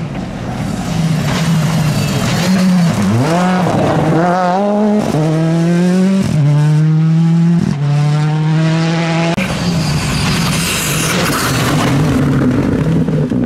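Rally cars at full throttle on a gravel stage. An engine note dips, then climbs hard through about four quick upshifts. A loud hiss of tyres throwing gravel follows as a car passes close.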